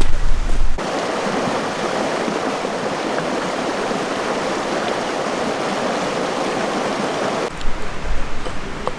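A river's water rushing steadily over the stream bed, starting about a second in and cutting off suddenly a little before the end.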